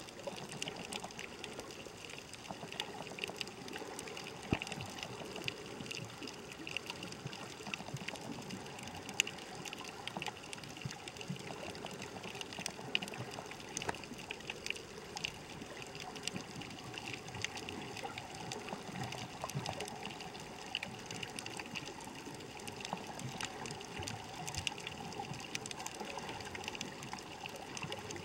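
Underwater ambient noise picked up by a submerged camera: a steady wash of water with many faint, scattered clicks and crackles.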